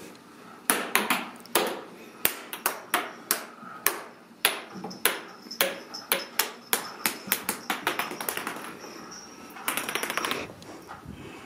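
Ragdoll kittens at play on a hardwood floor and wooden stairs: irregular sharp taps and clicks, a few a second, with about a second of denser rattling near the end.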